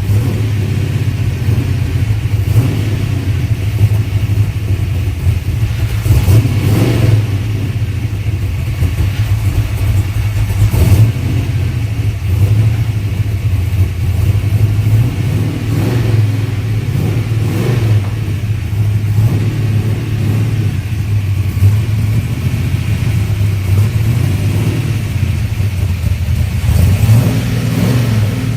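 1968 Dodge Charger's V8 running with a steady low rumble soon after starting. Short swells come now and then, and the pitch rises near the end.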